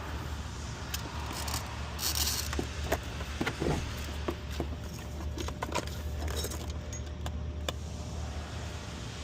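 Scattered light metallic clinks and jingles of tools and hardware being handled while working under the hood, over a steady low hum.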